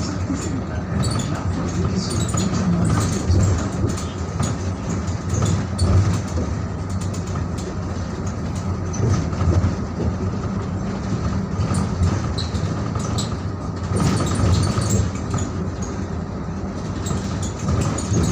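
Cabin noise inside a moving Rawalpindi–Islamabad Metrobus: a steady low rumble from the engine and road, with a faint high whine and small rattles and clicks throughout.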